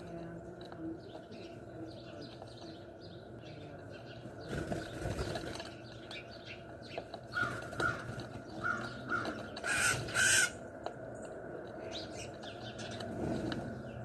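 Wild birds feeding at a ledge: a flutter of wings about five seconds in, then a run of about six short, harsh calls, the last two near the ten-second mark the loudest.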